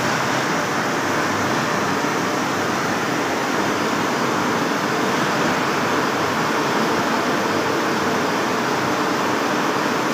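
CNC lathe turning a large steel roll: a steady, even machine noise of the running spindle and the tool at work, with no knocks or changes.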